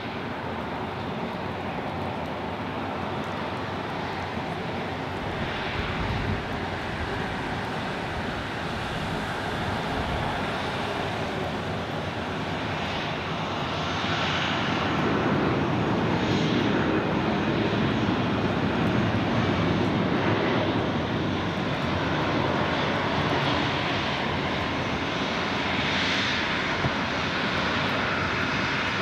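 Airbus A319's CFM56 turbofan jet engines on landing on a wet runway, a steady engine noise that grows clearly louder about halfway through as reverse thrust is applied.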